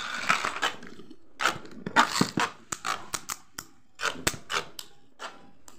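Two Beyblade Burst spinning tops, Dread Phoenix and Prime Apocalypse, battling in a bowl stadium: a short scraping whir just after launch, then irregular sharp clacks as the tops strike each other and the stadium wall.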